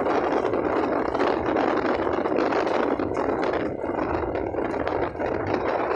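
Motorcycle being ridden along a road: a steady rush of noise, wind on the microphone mixed with the engine running, without let-up.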